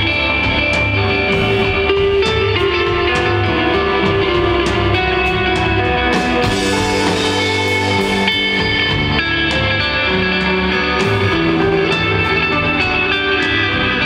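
Live instrumental desert rock from an electric guitar, electric bass and drum kit playing together, loud and steady with regular drum and cymbal strikes. About halfway through a bright swell rises in the top end while the bass briefly drops away.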